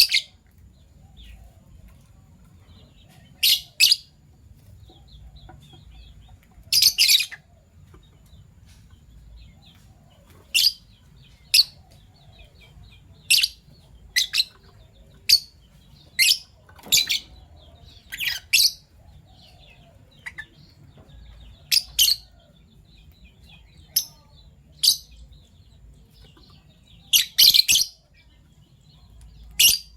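Fischer's lovebirds calling: short, shrill chirps at irregular intervals, every second or few, with soft twittering chatter between them.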